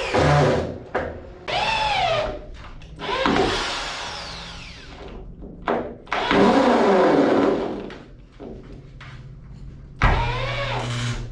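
Power drill driving long screws into wood in about five separate bursts, the motor speeding up and slowing down with each trigger pull as the screw draws the beam tight.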